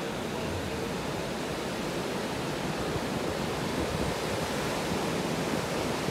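Ocean surf breaking on a flat sandy beach: a steady, even wash of noise that swells a little toward the end.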